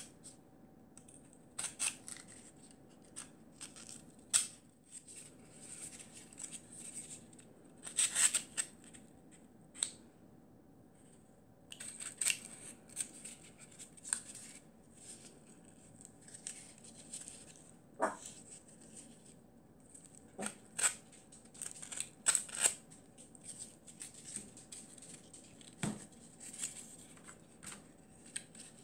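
Folding utility knife cutting and scraping corrugated cardboard in short, irregular strokes, with the cardboard pieces handled and a few sharp knocks against the table.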